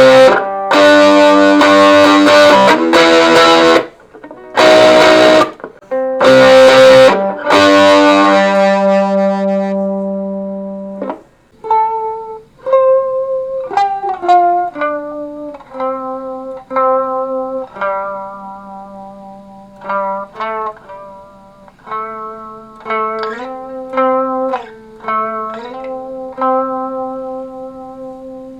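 Electric guitar played through a small Acorn Amps Biz Card amplifier into an old speaker in a box. Loud strummed chords for the first several seconds, one left ringing out, then single picked notes and short melodic lines with a few sliding notes.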